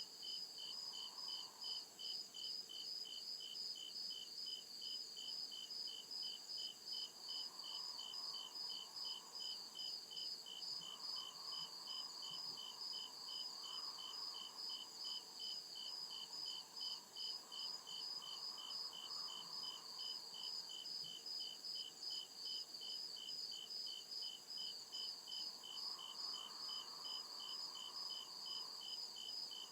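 Crickets chirping in a steady, even rhythm of short pulses, over a continuous high hiss.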